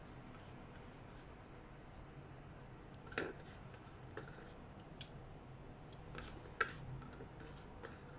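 Quiet room tone with a few light, scattered clicks and taps, the two sharpest about three seconds in and about six and a half seconds in.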